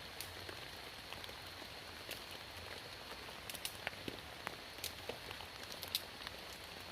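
Rain falling steadily, with scattered sharp ticks of single drops landing close by.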